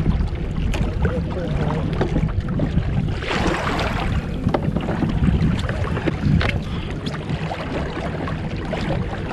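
Wind buffeting the microphone over small waves lapping against a kayak hull, with scattered small knocks and a brief rush of water noise a little over three seconds in.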